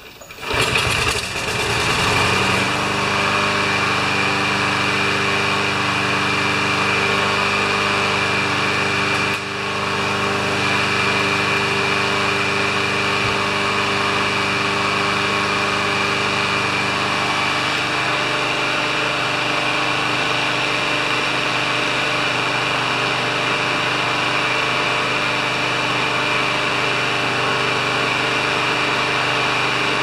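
A Craftsman walk-behind mower's Briggs & Stratton engine starts about a second in with its automatic choke closed and then runs steadily, with a brief dip in level about nine seconds in.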